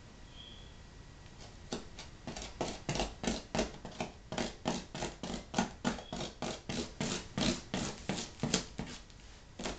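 Fingernails scratching and picking at packing tape and a plastic label sleeve on top of a cardboard box: a rapid series of short scrapes, about three or four a second, starting a couple of seconds in.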